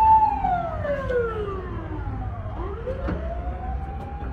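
Emergency vehicle siren wailing: a held high note slides slowly down for about two seconds, then climbs back up and holds again, over a low street rumble.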